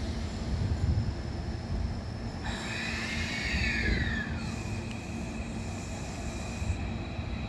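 Hankyu 1000 series electric train at a station platform, with a steady low rumble. About two and a half seconds in, a hiss starts and a high tone rises briefly, then glides down. A steady high whine follows to the end, as the train gets ready to pull away.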